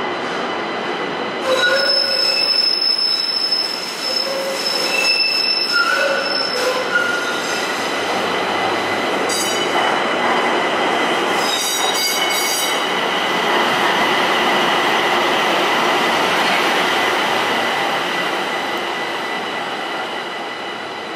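Light rail car running through a curved subway tunnel into a station, wheels squealing in several high pitched bursts over the first several seconds, with a steady high whine and running noise that grows louder as it approaches.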